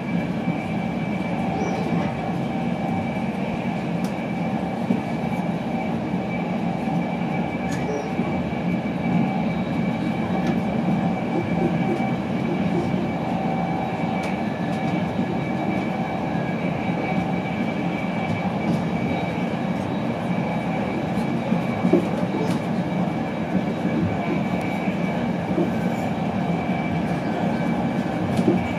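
Cabin noise inside a Mark 4 coach of an InterCity 225 train running at speed: a steady rumble of the wheels on the track with a thin steady whine over it, and occasional faint clicks.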